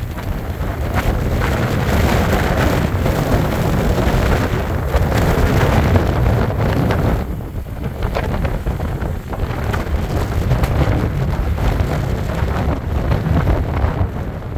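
Strong gusty wind buffeting the microphone, a loud low rushing that surges and eases, with a brief lull about seven seconds in.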